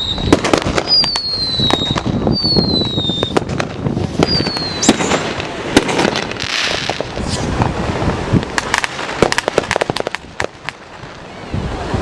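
Fireworks going off: many sharp bangs and pops, with three short whistles, each falling slightly in pitch, in the first half, and a quick run of crackling pops about nine seconds in.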